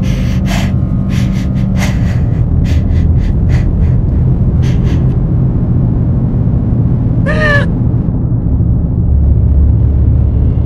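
A steady, low dark-ambient drone. Over the first five seconds a run of sharp clicks or knocks sounds above it, and about seven seconds in comes one short, wavering cry.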